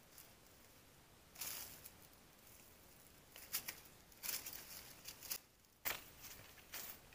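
Irregular rustling and crunching of leaves and brush as someone moves through bushes over dry leaf litter, in short bursts a second or so apart.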